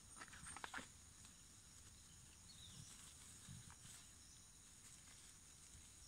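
Near silence: faint outdoor ambience with a steady high hiss, and a few soft clicks in the first second.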